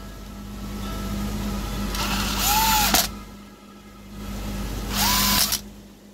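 Cordless power driver running in two short bursts, the first about a second long and the second about half a second, each spinning up and down as it drives a screw into a chainsaw's plastic top cover.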